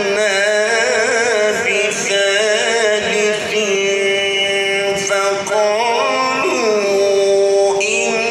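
A man's voice reciting the Qur'an in the melodic tajweed style, holding long notes that waver and turn in ornaments, sung into a microphone.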